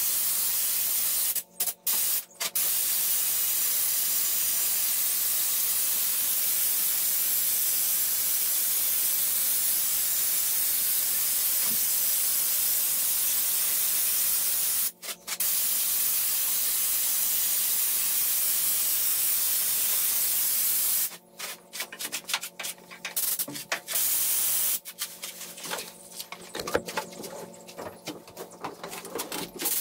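Air-powered spray gun spraying Raptor bed liner: a loud, steady hiss with brief breaks about two seconds in and again about halfway through. After about two-thirds of the way it sprays in short, uneven bursts.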